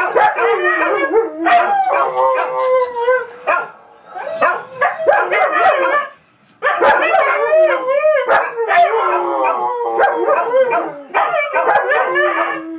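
A husky and other dogs howling together in long, wavering, overlapping howls that slide up and down in pitch. They break off briefly twice, at about three and a half and six and a half seconds in.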